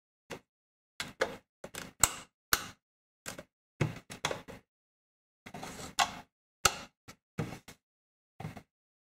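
Plastic housings of opened BN-1-003 signal lanterns handled and set down on a table: an irregular string of clicks and knocks, some in quick clusters, with short gaps of silence between.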